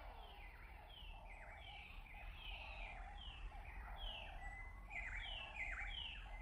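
Night wildlife ambience: a short high chirp, falling in pitch, repeats about one and a half times a second over a steady, gently pulsing lower chorus of calling animals.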